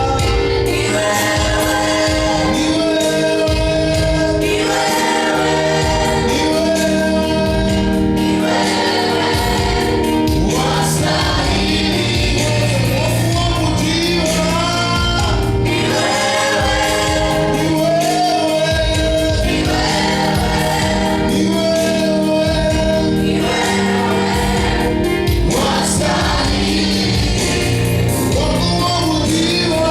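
Choir singing a gospel song over sustained low instrumental notes and a steady beat.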